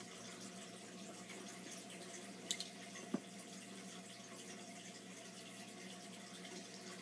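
Quiet room tone: a faint steady hum and hiss, broken by two small clicks about two and a half and three seconds in.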